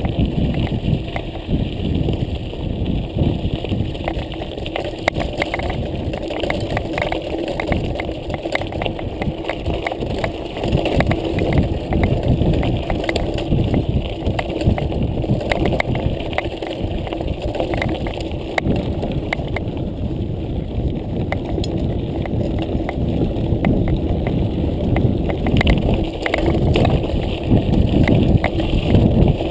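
Mountain bike rolling over a loose gravel track: tyres crunching and the bike and camera mount rattling with many small knocks, over a steady rush of wind on the microphone.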